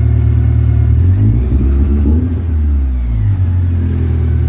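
A car engine running with a loud, deep, steady rumble. For a couple of seconds in the middle its pitch wavers up and down, then it settles back to a steady note.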